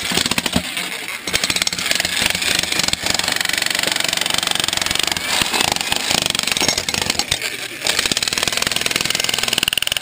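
Hitachi electric jackhammer hammering steadily into rock in the bottom of a hole. It lets off briefly about a second in and again near eight seconds.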